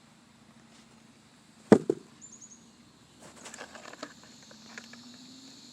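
A single sharp knock a little under two seconds in, then soft rustling and scraping of hands digging through garden soil around potato plants.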